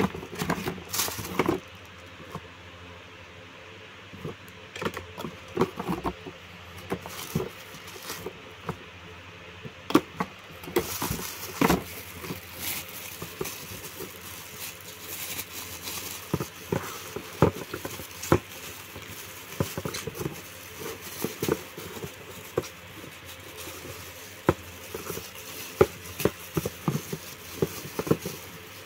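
Plastic bags and bubble wrap crinkling and rustling in irregular bursts as packaged items are handled, with light knocks and scrapes against the cardboard box; the crackling gets busier about a third of the way in.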